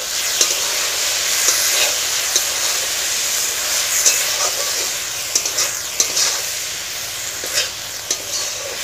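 Sliced sweet pumpkin sizzling in a karahi as a flat spatula stirs it, with a steady frying hiss and the spatula scraping and knocking against the pan every second or so, more often in the second half.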